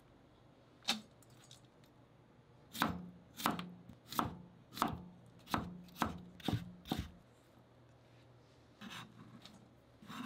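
Kitchen knife slicing a cucumber into thin strips on a plastic cutting board. There is a single knock about a second in, then eight even strokes at about one and a half a second, stopping near the seventh second. A softer scrape near the end as the cut strips are gathered by hand.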